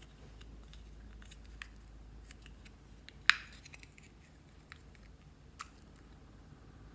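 Plastic lipstick case handled in the fingers: a few light clicks and one sharp plastic click about three seconds in.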